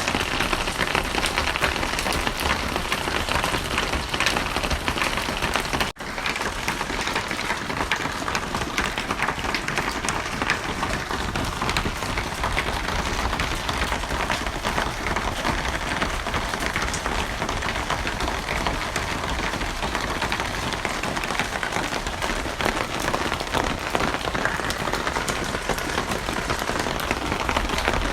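Steady rain falling on a surface, a dense, even patter of drops. The sound cuts out for an instant about six seconds in.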